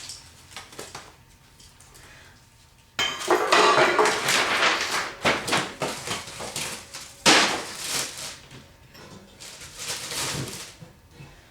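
Metal grill parts clattering and knocking against each other while being handled, mixed with the rustle of packing material. It starts about three seconds in, with a sharp knock a little past the middle.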